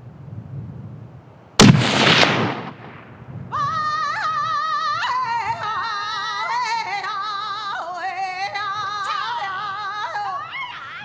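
A single unsuppressed rifle shot from a Blaser K95 single-shot break-action rifle in 6.5x55, about a second and a half in, echoing off the surrounding slopes. About three and a half seconds in, music with a wavering singing voice starts.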